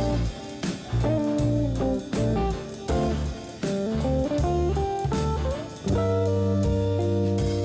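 Intro music led by electric guitar over bass, with a steady beat.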